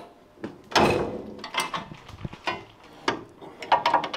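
Spanner wrench turning the threaded spring-seat collar on a QA1 coilover shock to set ride height, giving an irregular run of metal clicks and clanks.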